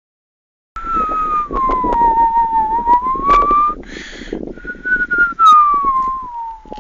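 A long, clear whistle that glides down and then back up, a short breathy hiss, then a second whistle falling steadily in pitch, over a low rumble of wind on the microphone.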